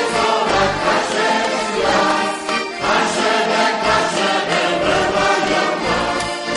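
A choir singing a song with musical accompaniment.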